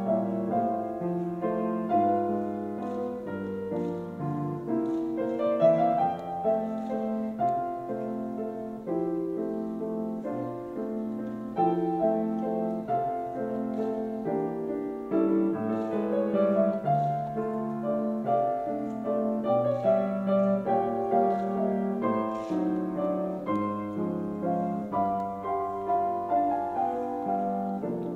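Piano music: a melody of sustained, overlapping notes.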